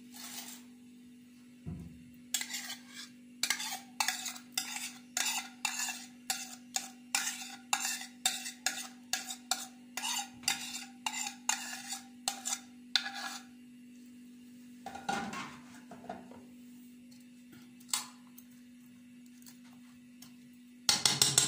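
Kitchen handling at a metal tray of sliced potatoes: a quick run of sharp clicks, about two or three a second, lasting about eleven seconds, then a few single knocks. A steady low hum runs underneath.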